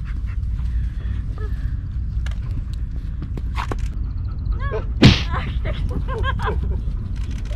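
A single sharp smack of a badminton racket hitting a shuttlecock, about five seconds in, over steady wind buffeting the microphone. Short, high, arched whines come just before and after the hit.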